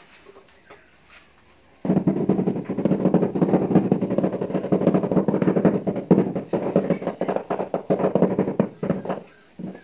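Rapid gritty scraping and rattling of a tool working mortar along the edge of a ceramic floor tile. It starts about two seconds in and stops shortly before the end.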